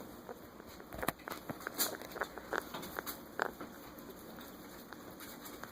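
Sick pet rat's rattly breathing: a string of short, irregular crackly clicks that thins out after about the middle.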